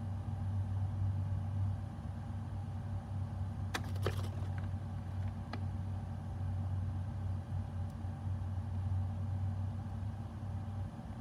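A steady low hum, with a few light, sharp clicks about four seconds in and one more a second and a half later.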